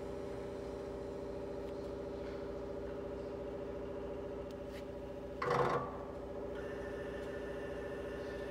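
Weinig R960 profile grinder running with a steady electric motor hum. About five and a half seconds in there is a brief loud burst of noise, and a higher steady whine joins about a second later as more of the machine is switched on from its control panel.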